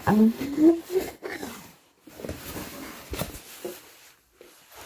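Cardboard box and packaging being handled as it is opened, with rustling and a sharp knock about three seconds in. At the start there is a short vocal sound rising in pitch.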